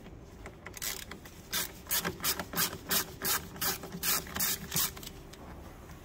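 Ratchet with a T30 Torx bit clicking in quick strokes, about three or four clicks a second for some four seconds, as a door-card bolt is undone.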